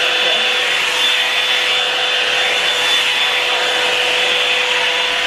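Revlon One-Step Dryer and Styler hot air brush running steadily, a loud rush of blown air with a constant hum and a high whine from its motor.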